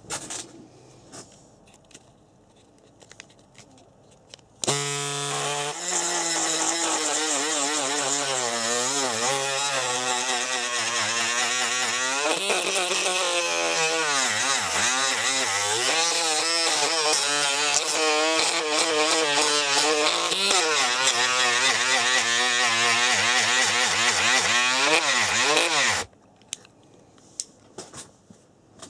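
Etronix 550 12-turn brushed electric motor in the RC buggy running on the bench, turning the gearbox and wheels with a whine that rises and falls in pitch as the throttle is worked. It starts about five seconds in and stops suddenly near the end, with a few light clicks before it.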